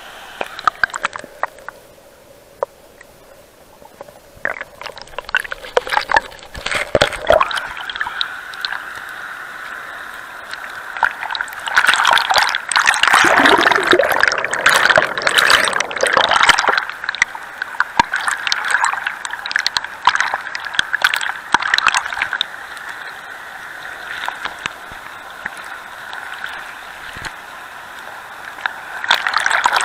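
River water sloshing and gurgling around a camera held at the waterline, with the rush of a small rocky cascade behind. About twelve seconds in it gets louder for several seconds, bubbling and churning as the camera dips under the surface.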